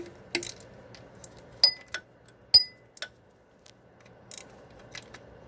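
Ratchet and 13 mm socket on a swivel clicking and clinking against metal as a bolt is worked by hand: about ten irregular sharp clicks, a few with a short metallic ring.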